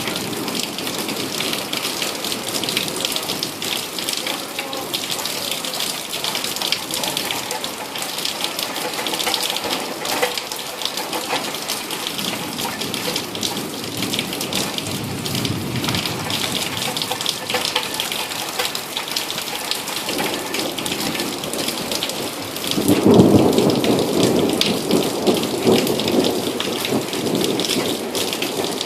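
Heavy rain falling steadily, with a patter of drops throughout, during a thunderstorm. A loud rumble of thunder rolls in about three quarters of the way through and fades slowly.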